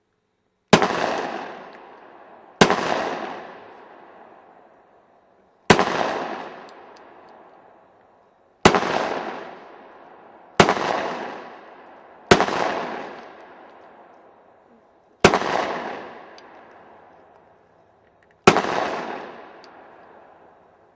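Glock .40 pistol fired eight times at an uneven pace, a second to three seconds apart, each sharp shot trailing off into a long echo of about two seconds.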